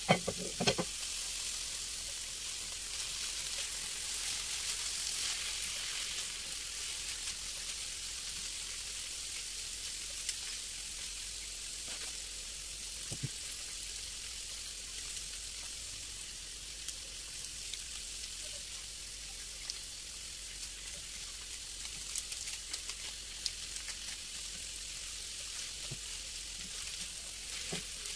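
Food frying in oil in a pan, a steady sizzle with a few light clicks scattered through it.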